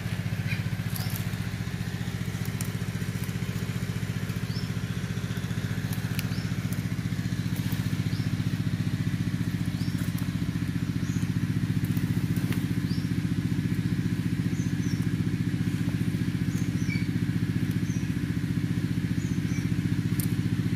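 A steady engine drone with a low, even hum, unchanging throughout, with short high chirps every second or two over it.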